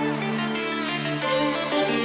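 Electronic background music with sustained synth notes and a plucked melody line.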